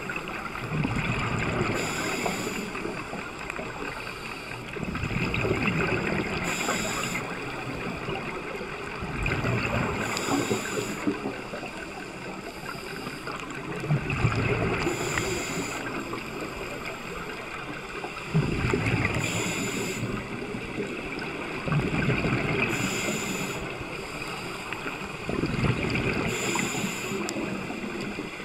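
Scuba diver breathing through a regulator underwater, a cycle about every four seconds: a rumble of exhaled bubbles, then a short hiss of inhaling. It repeats seven times.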